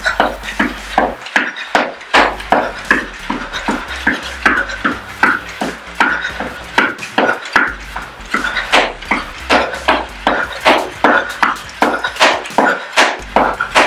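Running shoes striking an exercise mat over a wooden floor in quick footfalls, about three a second, during high knees run in place.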